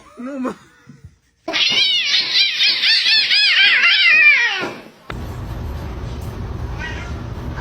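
A cat yowling in a quick run of loud, rising-and-falling meows, about three a second, for about three seconds. It stops abruptly, and a steady background hiss follows.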